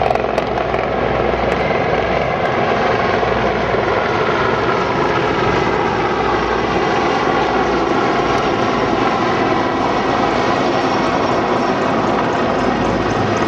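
Military helicopters, a Mil Mi-17 among them, flying low overhead: loud, steady rotor and engine noise that stays at a constant level.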